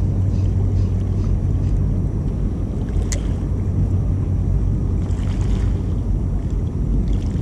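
Small fishing boat's outboard motor running steadily at low speed: a constant low hum with water and wind noise. A brief sharp click comes about three seconds in.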